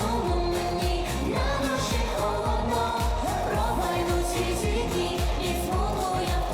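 Pop music with a steady beat and a sung vocal line.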